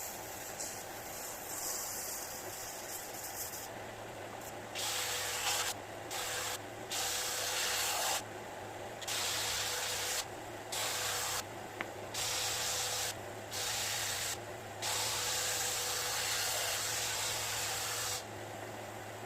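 Spraying hiss in repeated on-off bursts, each lasting from under a second to about three seconds, over a steady low hum.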